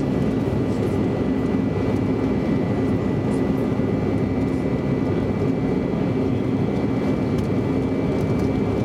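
Steady in-flight cabin noise of a CRJ regional jet: the even rush of airflow and the rear-mounted turbofan engines, with a low hum and a faint high whine held constant.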